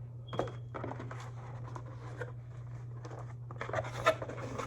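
A cardboard shipping box being opened by hand, with its packing rustling and crinkling in irregular bursts and one sharper crackle about four seconds in.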